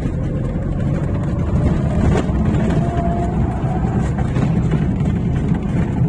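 Car engine and tyre rumble on a rough dirt road, heard from inside the cabin: a steady low rumble with a faint, slightly rising engine note and one brief knock about two seconds in.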